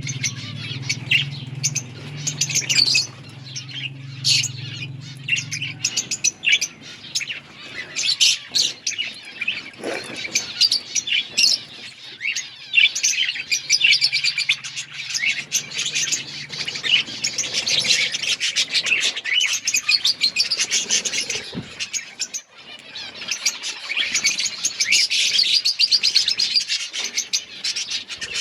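A flock of budgerigars chattering and chirping constantly, many birds at once. A low steady hum runs underneath for the first six seconds and again for a few seconds midway.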